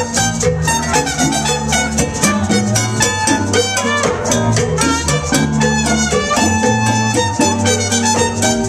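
Live salsa band playing, with congas and bongos keeping a busy rhythm over a steady bass line.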